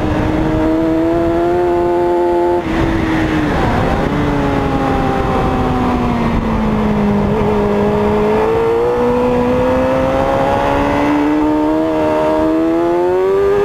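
Onboard sound of a racing motorcycle engine at speed on track: high revs held, a brief break about two and a half seconds in, the revs falling steadily into a corner, then climbing again as the bike accelerates out, with a small drop near the end.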